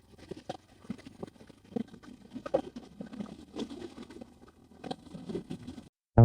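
Faint, irregular clicks and knocks over a low background noise, stopping suddenly near the end.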